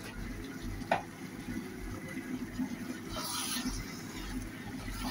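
Spatula stirring raw beef chunks through hot oil and spice paste in a pan, with a light tap about a second in and a short scraping rustle about three seconds in, over a steady low background noise.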